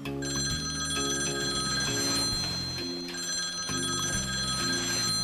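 Telephone ringing twice: a steady high ring lasting about two seconds, then a second ring starting about three seconds in. Background music with a slow run of low notes plays underneath.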